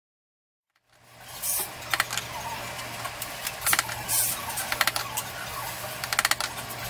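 Short clusters of quick, sharp metallic clicks from a small hand tool worked against a piece of jewelry, over a steady low hum. The sound comes in about a second in, and the clicks repeat in brief bursts every half second to a second and a half.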